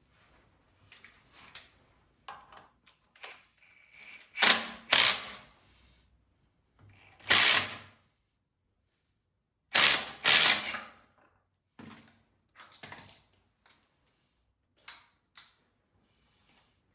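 Hand tools and metal engine parts clicking and clanking in short bursts, with several louder ratcheting or rattling spells, as a seized two-stroke motorcycle engine is taken apart.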